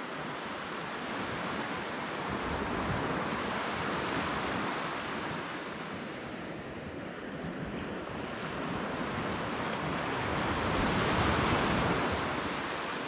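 North Sea surf washing onto the beach, a steady rush that swells and eases and is loudest about three-quarters of the way through, with some wind on the microphone.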